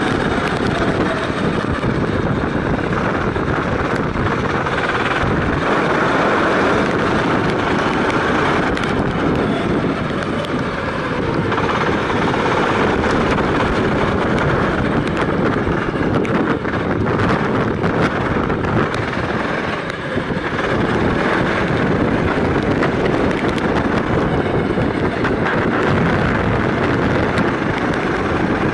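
Kart engine running continuously at racing speed, heard from the onboard camera mounted on the kart, mixed with wind and road noise; the level dips slightly twice.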